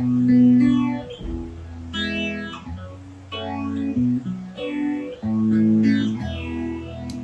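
Guitar played through a Zoom MS-70CDR multi-effects pedal on a reverb patch: chords and notes picked about once a second, each left ringing.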